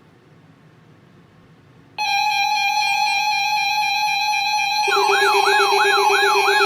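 Emergency alert alarm tones. Faint hiss gives way about two seconds in to a sudden loud, steady electronic tone. About five seconds in, a lower steady tone and a siren-like warble join it, sweeping up and down about two and a half times a second.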